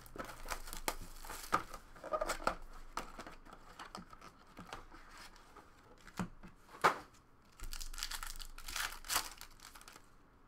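Cardboard trading card box being torn open, and foil card pack wrappers crinkling as they are handled, with a couple of sharper rips as a pack is torn open near the end.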